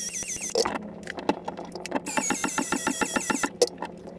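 Cordless PEX-A cold-expansion tool running, its motor whirring in rapid repeated strokes, about six a second, as the head expands the pipe end. It pauses briefly about a second in and again near the end.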